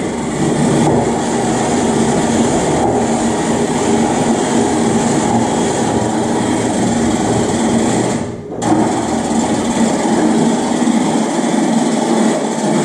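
The engine of a lifting machine running steadily as it raises a glulam beam, with a brief dip about eight seconds in.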